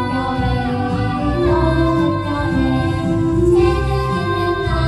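Children singing a Korean children's song (dongyo) into handheld microphones, with instrumental accompaniment underneath; the voices hold steady sung notes that change every second or so.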